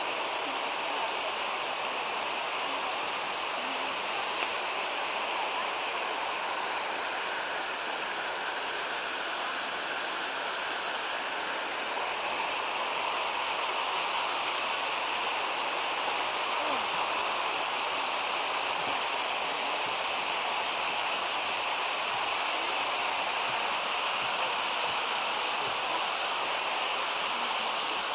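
A creek cascading over waterfalls and rapids, making a steady, even rush of water.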